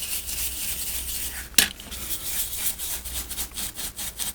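Paintbrush bristles scrubbing isopropyl alcohol over a remote control's circuit board, in quick rasping strokes several times a second, with one sharp tap about a second and a half in.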